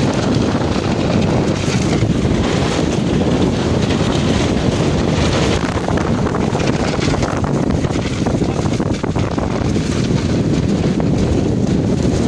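Heavy wind buffeting the microphone aboard a gaff-rigged sailing catamaran: a loud, steady rushing rumble.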